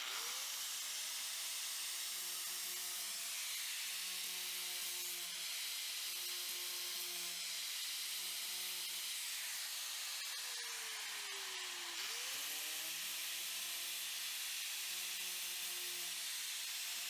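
Angle grinder grinding down welds on a sheet-metal patch panel: a steady abrasive hiss over the motor's whine. The pitch sags about ten seconds in and climbs back up about two seconds later.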